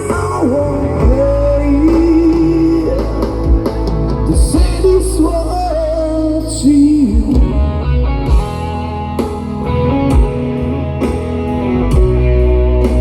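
Live band playing a pop-rock song: a singer's melody over guitar, bass and drums. The voice drops out about seven seconds in, leaving guitar and drums playing on.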